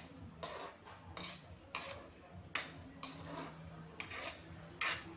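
Metal spatula scraping and stirring across a metal pan through a thick, wet mash, in repeated strokes about two-thirds of a second apart.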